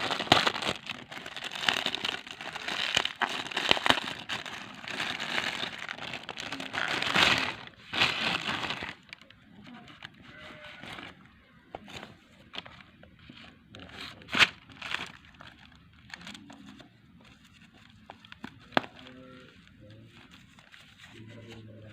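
Packaging crinkling and rustling as a wallet parcel is unwrapped. The crinkling is dense for about the first nine seconds, then thins to scattered crackles and clicks, with one sharp crack a little past the middle.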